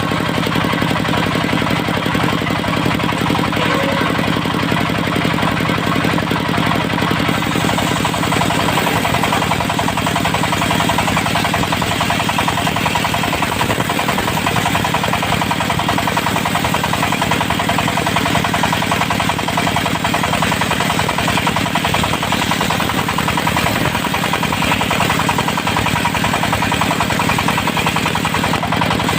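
Portable circular sawmill running, its diesel engine keeping up a steady, rapid beat. About seven seconds in a higher hiss joins the engine sound and stays.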